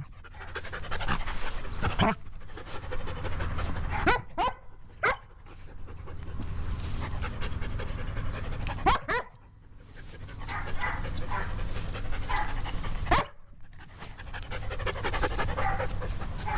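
Poodles panting hard during rough play, with several short rising yips or whines a few seconds apart.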